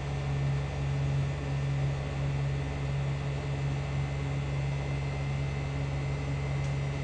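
Steady motor hum: a constant low drone with an even hiss over it.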